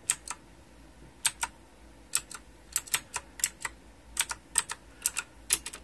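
Typing on an EagleTec metal mechanical keyboard: sharp, clicky keystrokes in an uneven rhythm, with a short pause after the first two strokes.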